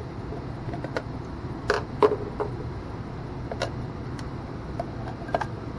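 Scattered sharp clicks and knocks of hands and a tool working loose the metal access panel on an electric water heater, over a steady low hum.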